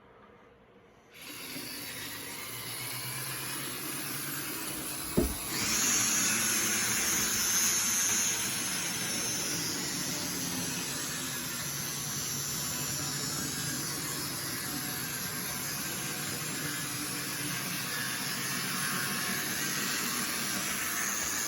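TT scale model trains running on a layout: the steady whine of small electric locomotive motors and the rattle of wheels on track. It starts suddenly about a second in, and a click about five seconds in is followed by a higher, louder whine for a few seconds.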